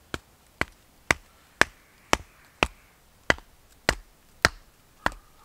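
A wooden baton knocking a green-wood stake into soft ground: ten sharp knocks, about two a second.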